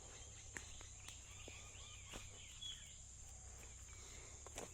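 Faint outdoor ambience: a steady high-pitched insect drone, with faint bird chirps in the middle and a few soft clicks.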